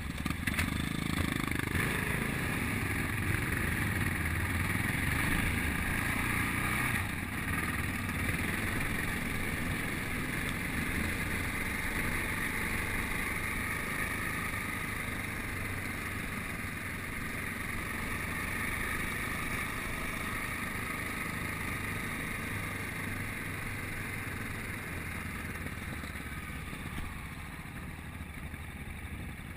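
Yamaha Ténéré adventure motorcycle's engine pulling away and then running steadily under way on a gravel road, with a continuous rush of wind and road noise over the bike-mounted microphone. The sound is loudest in the first several seconds and eases off a little near the end.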